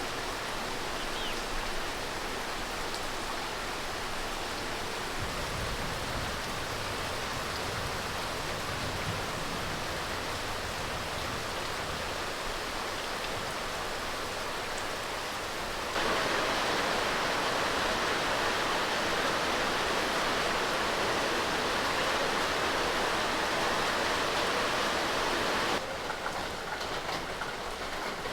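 Steady rain falling, an even hiss of drops. It gets abruptly louder about halfway through and quieter again shortly before the end.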